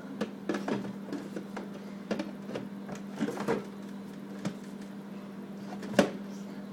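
Scattered small knocks and clicks of things being handled in a fridge, with one sharp louder knock about six seconds in, over a steady hum.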